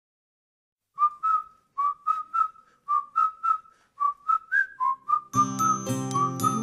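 A whistled tune of short notes, mostly in quick pairs, starting about a second in. About five seconds in, backing music with held chords and a bass line comes in under the whistling, like the opening of a pop song.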